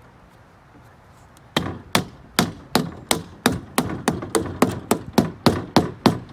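Mallet tapping an aluminum window frame down onto a double-pane glass unit: about fifteen sharp knocks, roughly three a second, starting about a second and a half in. The taps are working the frame over the rubber gasket on the new glass.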